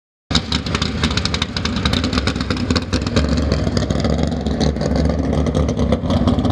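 Ford V8 drag-car engine running loud with rapid, even firing pulses, its pitch creeping up a little about halfway through. It cuts in suddenly just after the start.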